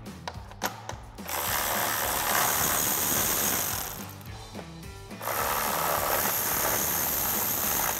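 Cordless electric ratchet with a 10 mm socket running nuts off, in two runs of about three seconds each, the second starting about five seconds in, over background music.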